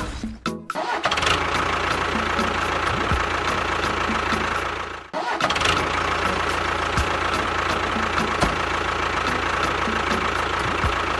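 A motor running steadily with a faint regular ticking. It cuts out about five seconds in, starts again, and stops abruptly near the end.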